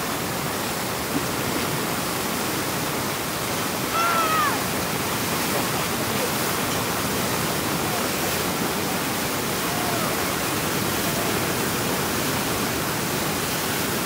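Flooded Waimea River rushing out across the beach into the shorebreak: a steady rush of churning whitewater. A person gives a short shout about four seconds in.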